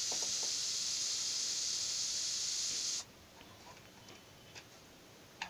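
Pressure cooker venting steam in a steady hiss, the pressure building toward its whistle. The hiss cuts off suddenly about three seconds in, leaving only faint clicks.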